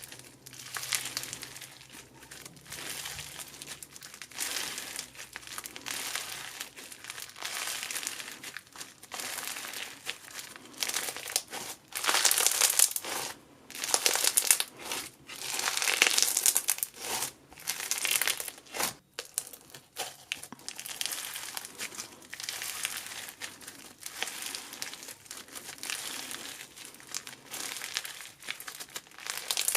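Slime being squeezed and stretched by hand, crackling and crinkling in repeated irregular squishes every second or two, loudest around the middle.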